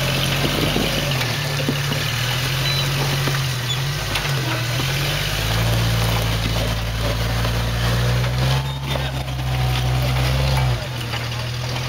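Jeep engine running at crawling speed, its revs rising and falling several times as it works the lifted Jeep up over rocks.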